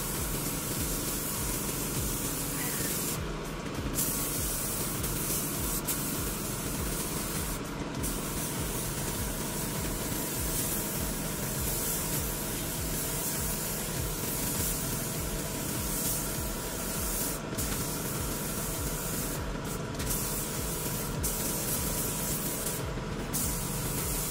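Gravity-feed spray gun hissing as it sprays black base coat at about 25 PSI, the hiss dropping out briefly several times between passes.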